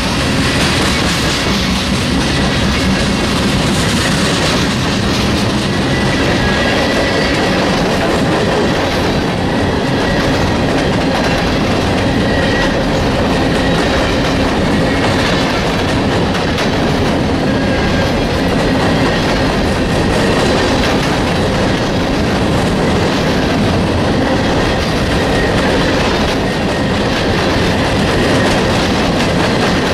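A loaded freight train's cars rolling past close by: a steady rumble of steel wheels on rail, with the clickety-clack of wheel sets crossing rail joints.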